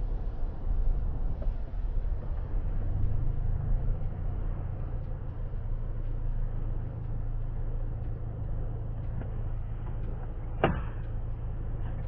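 Car engine and road rumble heard from inside the cabin, easing off as the car slows, then a low, steady engine idle. One sharp click about ten and a half seconds in.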